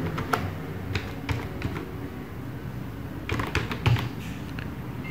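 Computer keyboard keystrokes: a few scattered key presses, then a quick run of several keys about three and a half seconds in.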